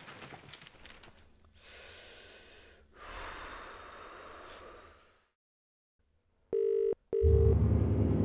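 A phone call ringing out: two short pulses of a steady ringback tone close together, heard over the line, with a low, dark music drone coming in under the second pulse. Before that there are only faint hissing and rustling noises.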